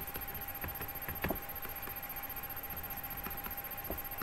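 Low, even background hiss with a thin steady tone running through it, broken by a short faint click about a second in and a fainter one near the end.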